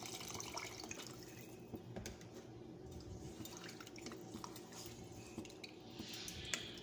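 Faint splashing of fresh milk poured from a carton into a pot of soup, then a wooden spatula stirring the soup with a few light knocks against the pot.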